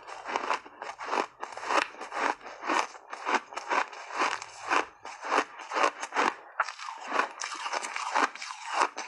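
Close-miked chewing of crunchy compressed ice chunks coated in matcha powder, with about two sharp crunches a second as the ice cracks between the teeth.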